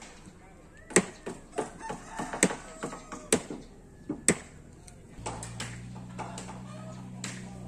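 Repeated sharp blows, about one a second, each with a short ring after it, while a rooster crows in the background. About five seconds in, a steady low hum starts and the blows stop.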